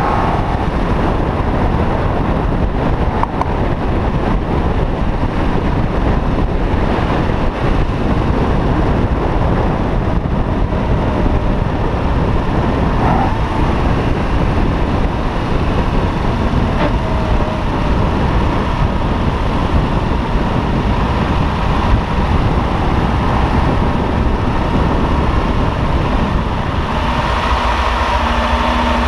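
1962 Ferrari 250 GT/E's 3-litre V12 running as the car drives along, heard close over the open engine bay. About two seconds before the end it drops to a steady idle as the car comes to a stop.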